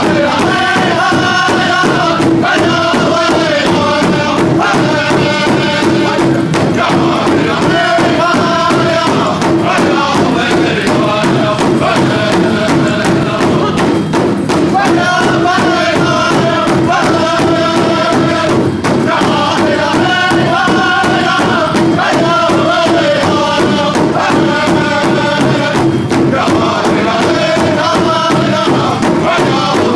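Powwow drum group singing together in chant phrases over a steady, even beat on a large drum.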